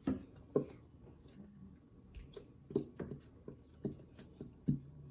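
Squeezed plastic bottle of slime activator squirting and sputtering into a plastic tub, with short wet squelches coming irregularly, about eight in five seconds.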